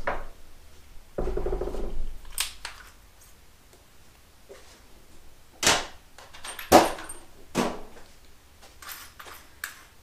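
Sharp metallic clanks and clicks of hand tools and a small steel part being handled at a bench vise, with a brief rattle about a second in. The two loudest clanks come near the middle.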